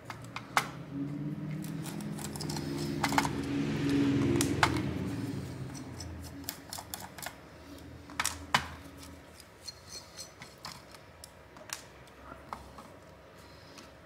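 Small Phillips screwdriver and tiny screws clicking and ticking against a graphics card's metal backplate as the screws are backed out. A low hum runs under the clicks from about one second in and fades out by about nine seconds.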